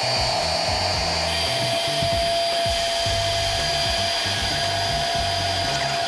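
Electric air pump running steadily, a motor whine over a rushing hiss, as it blows up an air mattress.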